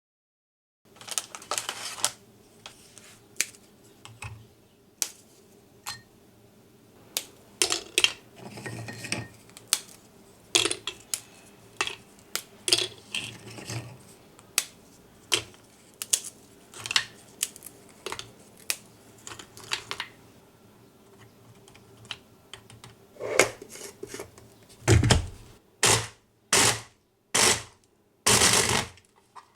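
Kitchen preparation sounds: scattered light clicks and clinks of utensils and containers, then several louder, longer bursts near the end.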